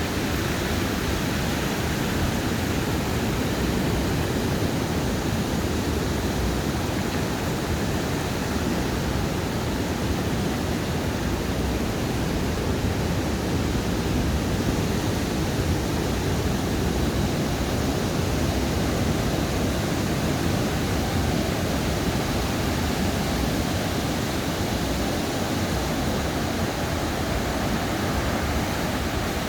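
Ocean surf washing onto a sandy beach, a steady even rush with no single wave standing out.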